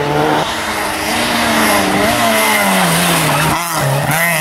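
Rally car engines at high revs, the engine note climbing and dropping through gear changes and lifts off the throttle, with a sudden break about three and a half seconds in where one passing car gives way to another.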